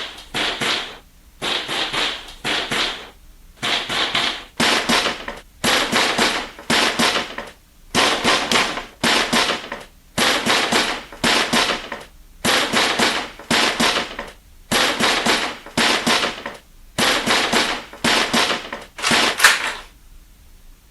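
Rapid knocking on a door, in short flurries of quick blows about half a second long, grouped in twos and threes with brief pauses, going on insistently until it stops near the end.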